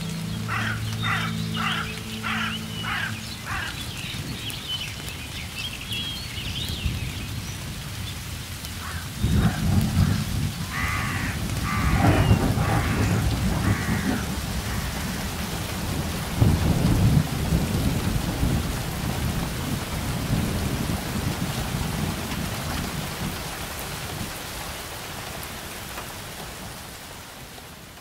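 Steady rain with low rumbles of thunder rolling through the middle. A bird calls repeatedly, about twice a second, in the first few seconds, and the whole sound fades out at the end.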